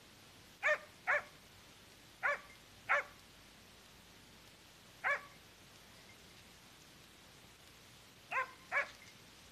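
A hunting dog barking at a wild boar it is holding at bay: seven short barks, mostly in quick pairs, with pauses of a few seconds between.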